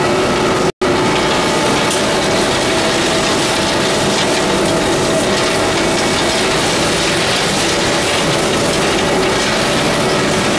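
Sawdust pellet mill running: steady, loud machinery noise with several steady hum tones over it.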